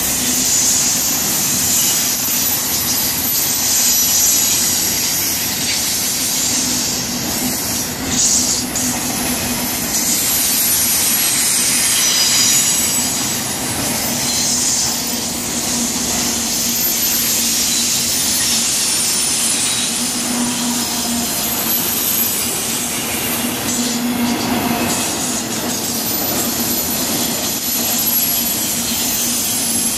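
BNSF intermodal freight train's flatcars loaded with truck trailers rolling past close by at speed: a loud, steady rush of steel wheels on rail.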